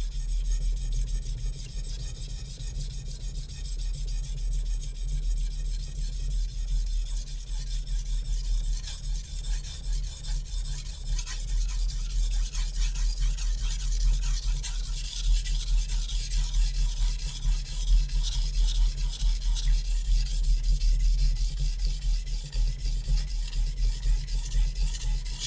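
Shun Classic chef knife's VG-MAX steel blade pushed and pulled across a wet Naniwa Superstone 400 whetstone: a continuous gritty rasping of rapid back-and-forth sharpening strokes, with a steady low hum underneath.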